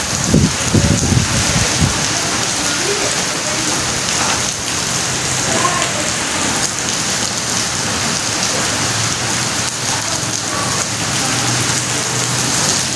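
Steady rain falling on trees and wet paving, an even hiss throughout. Irregular low rumbling comes in the first two seconds.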